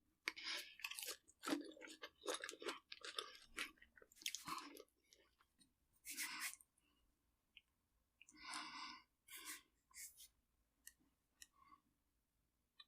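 Crunchy chewing close to the microphone: irregular crunches, dense for the first five seconds, then sparser with longer gaps.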